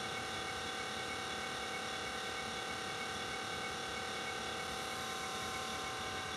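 Electric pottery wheel running at a steady speed, its motor giving a constant hum with a high whine.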